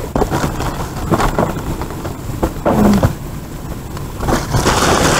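Black plastic trash bags and cardboard snack boxes rustling and crinkling as they are rummaged through, with irregular knocks of handling. A steady rushing hiss comes in near the end.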